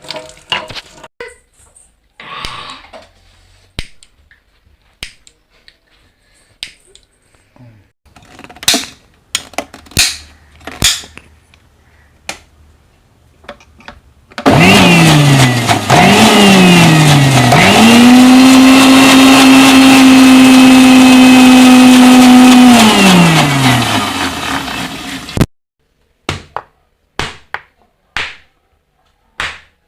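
Scattered clicks and knocks, then an electric mixer-grinder (mixie) runs loudly: it is pulsed twice, then held at a steady high speed for about five seconds, and winds down before stopping abruptly. More sharp knocks follow near the end.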